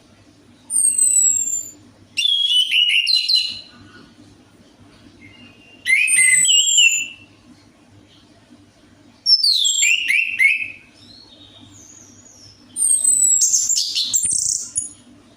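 Orange-headed thrush singing in five loud phrases of rapid, sliding, falling whistles and trills, each one to two seconds long, with pauses of about one to three seconds between them.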